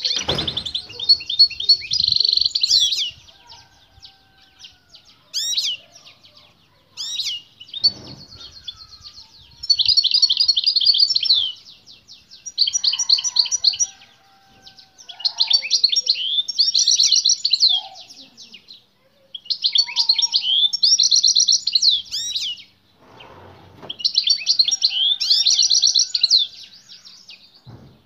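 European goldfinch singing vigorously in repeated bouts of rapid, tinkling twitters and trills, each bout a few seconds long with short pauses between. This is a male's full song in response to a female singing nearby.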